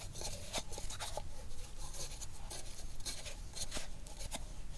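Hands kneading a stiff flour-and-water dough inside a metal cup: soft uneven rubbing and squishing, with scattered faint clicks as the fingers and dough work against the cup wall.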